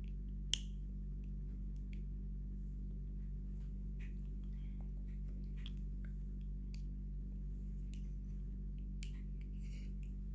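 Steady low hum with a few faint, scattered clicks and light rustles.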